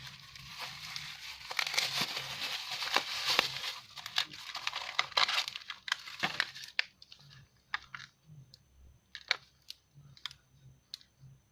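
Packaging being crinkled and torn open by hand for about the first seven seconds, then a few scattered light clicks and taps.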